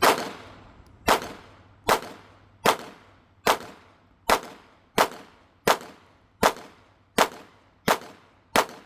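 Semi-automatic 9mm pistol firing 124-grain rounds in a steady string of single shots, about one every three-quarters of a second, twelve in all, each with a short ringing tail.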